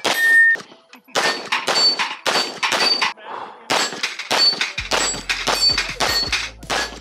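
Steel shooting targets clanging under a fast string of pistol hits, about two to three strikes a second, each with a short high-pitched ring. Electronic music comes in underneath about five seconds in.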